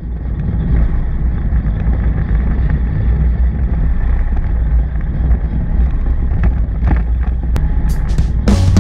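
Motorcycle on the move: a steady low engine-and-road rumble picked up by a camera mounted on the bike. A few short clicks come near the end.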